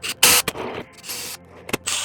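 Short scraping and rustling bursts with a couple of sharp clicks, from parts being handled as the feet are fitted to the pedalboard.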